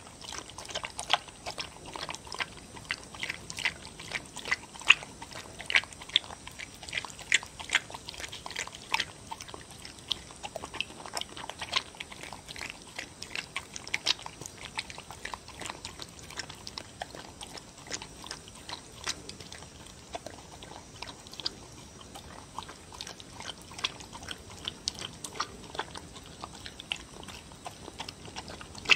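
A dog eating wet seaweed, dried pollack and beef soup from a bowl: a rapid run of wet smacking and chewing clicks, busiest in the first ten seconds or so.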